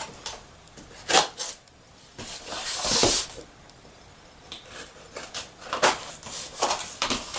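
Cardboard model boxes being handled and opened: a knock about a second in, a scraping slide of cardboard a little before the middle, then scattered light taps and clicks.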